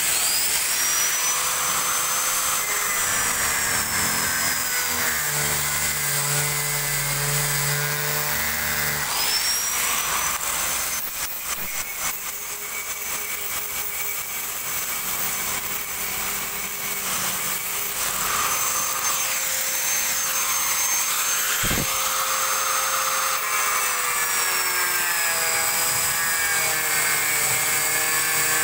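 Handheld electric angle grinder running and grinding the edge of a 5 mm acrylic sheet. Its high whine sweeps up at the start and again about nine seconds in, then slowly falls in pitch.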